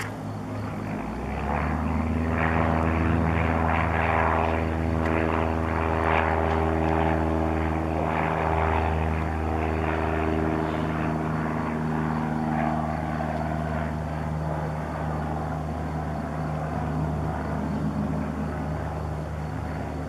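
Avro Lancaster bomber's four Rolls-Royce Merlin V12 piston engines and propellers, a deep steady drone as it flies past low. The drone swells about a second in and slowly fades over the second half.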